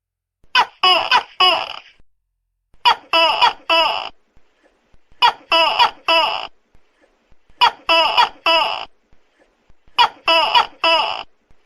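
Tokay gecko calling loudly: five bursts of about four sharp, barking notes each, repeating evenly every two and a half seconds or so.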